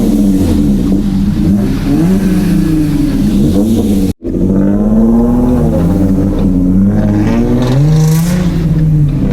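2017 Ford Mustang's 3.7-litre V6 running through a muffler-deleted exhaust while being driven, its pitch rising and falling several times as the revs change. The sound cuts out for an instant about four seconds in.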